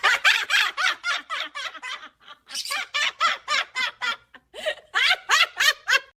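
Laughter in three quick bouts of rapid, evenly spaced ha-ha pulses.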